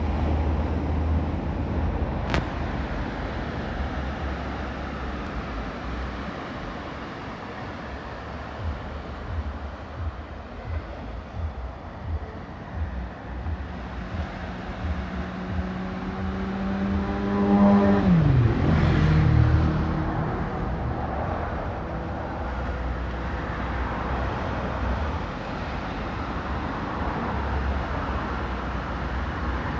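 A motor vehicle passes by about 18 seconds in. Its engine hum swells, then drops sharply in pitch as it goes past. Underneath throughout is a low, gusty rumble of wind on the microphone.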